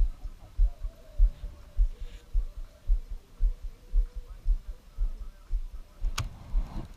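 Low, regular thumps just under twice a second as small waves slap against the boat's hull, with a faint hum beneath and one sharp click about six seconds in.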